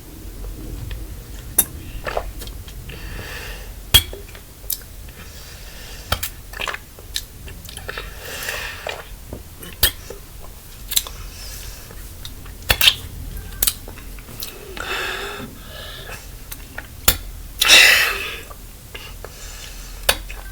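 A person drinking 7UP from a bottle: a scatter of sharp clicks and clinks from handling the bottle, with a few short gulps or breaths between them. The loudest comes about 18 seconds in.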